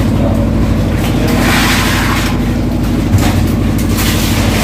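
Steady low drone of a running engine, with scattered knocks and clatter and a short rushing hiss about a second and a half in.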